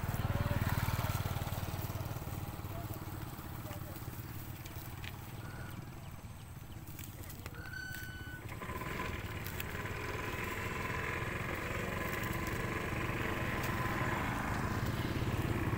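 A small motorcycle engine running over a steady low rumble, growing louder over the second half.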